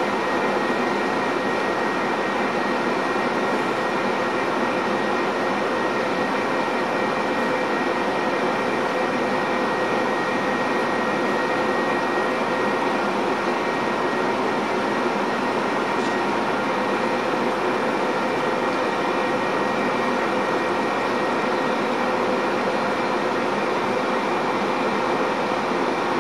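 Steady mechanical hum and rush from a Metra bilevel commuter train standing at the station platform, with a few faint whining tones held steady.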